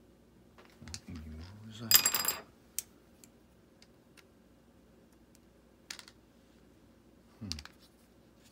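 Small metal objects clinking: one bright metallic jingle about two seconds in, then a few light clicks and taps spread over the next several seconds.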